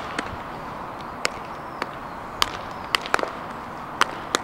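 Baseballs smacking into leather gloves during throwing practice: sharp pops at irregular intervals, about eight in all, over a steady background hiss.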